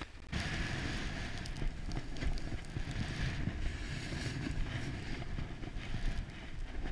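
Wind buffeting an action camera's microphone during a snowboard run, a steady rushing rumble, with the hiss of the board sliding over the snow.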